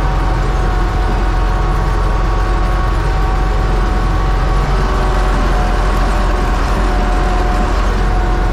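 Universal 650 tractor's diesel engine running steadily under load while pulling a plough, with a steady high whine over the low engine drone.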